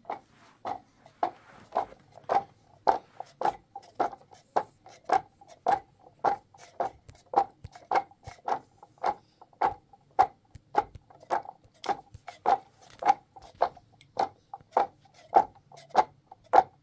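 Steady, evenly spaced knocks, about two a second, like a tool striking repeatedly in a steady working rhythm.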